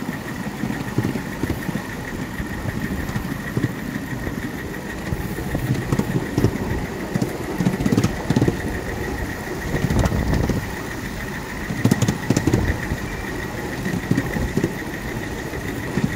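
A miniature railway locomotive running along its track with a passenger car behind it: a continuous rumble of wheels on rail with scattered clicks and knocks from the rail joints, and a thin, steady, high whine over it.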